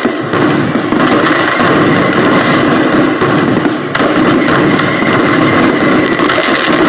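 Continuous dense din of New Year firecrackers and fireworks going off together, a steady loud crackling wash rather than separate bangs.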